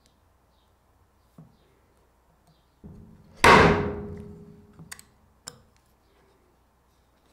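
One sharp metal strike on a punch, driving it through the ring hole of a thin hardened-steel gauge into a beech board, with a ringing tail that dies away over a second or so. Two light clicks follow as the punch and gauge are handled.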